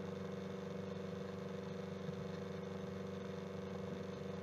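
A steady low hum of several level tones, with no speech over it.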